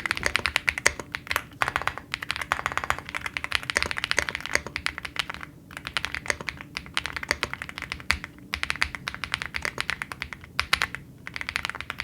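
Steady fast typing on an Epomaker x Feker Galaxy 80 gasket-mounted mechanical keyboard with its stock Marble White linear switches. It is a dense run of thocky keystrokes with a few brief pauses.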